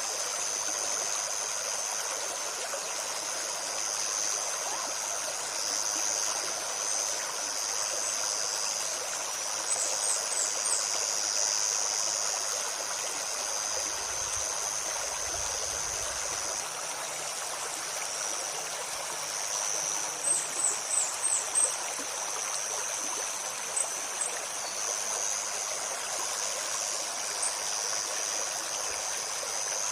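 A forest stream babbling steadily over its bed. Over it runs a high, steady buzz of insects that swells and fades. Small birds give short, high chirps in brief clusters about a third of the way in, around two-thirds of the way, and near the end.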